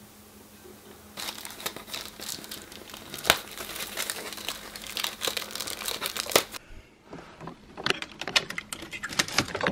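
Paper packaging crinkling and rustling as it is handled, in two stretches of dense irregular crackling with a short gap between.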